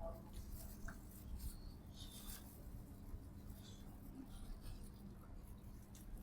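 Faint eating sounds: scattered soft clicks and rustles of chewing and handling oily chicken, over a steady low hum.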